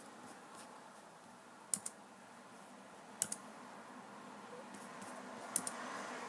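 Faint clicks at a computer: three quick pairs of sharp clicks a second or two apart, over a low steady room hum.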